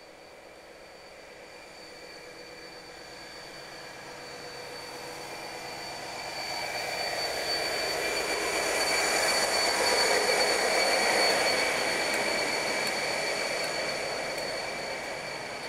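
DRS Class 57 diesel locomotive 57003 approaching under power and passing, its engine and wheels growing louder to a peak about ten seconds in, then the engineering train's wagons running past on the rails as the sound fades.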